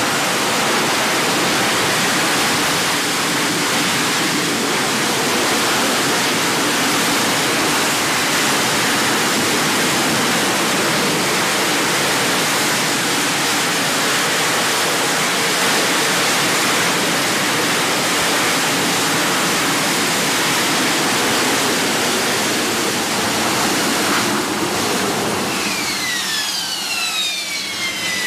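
AV-8B Harrier II's Rolls-Royce Pegasus turbofan with a loud, steady jet-blast roar as the jet hovers in vertical landing. Near the end the roar drops and a high turbine whine falls in pitch, then levels off, as the landed jet's engine is throttled back.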